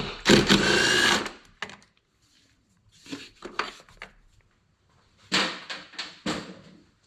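A handheld power tool runs in two short bursts about five seconds apart, the first lasting about a second. Light clicks and knocks of tools on metal come between the bursts.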